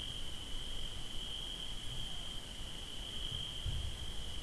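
Crickets trilling steadily at night as one constant high-pitched tone, over a low outdoor rumble with a faint dull thump about three-quarters of the way through.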